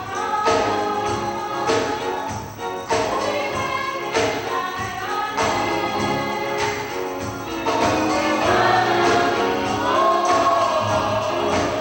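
Church choir singing a gospel song with instrumental backing, the accompaniment marking a steady beat about once every second and a quarter.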